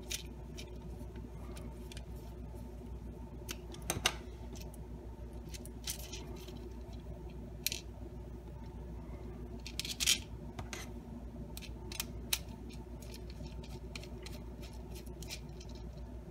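Scattered light clicks and scrapes of a small hex screwdriver driving bolts into a 3D-printed plastic bearing carriage, with the plastic parts being handled, over a low steady hum. The sharpest clicks come about four seconds in and around ten seconds in.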